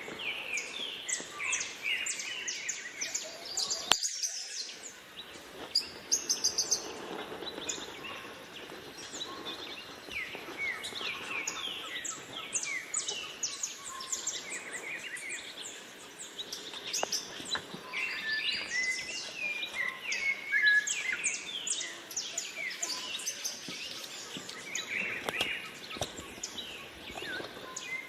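Many birds singing and calling at once: a dense, continuous chorus of quick high chirps and short downward-sweeping notes.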